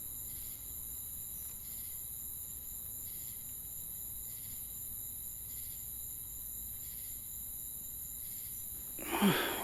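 Crickets chirping steadily, with a soft pulse about once a second. Near the end a short, louder voice sound cuts in.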